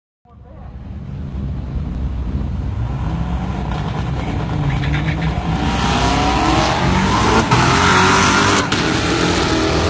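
Twin-turbocharged Corvette C7 Z06 V8 accelerating on a test pass with wastegate boost only. Its engine note rises in pitch and grows steadily louder, turning much louder and brighter about six seconds in, with two sharp cracks near the end.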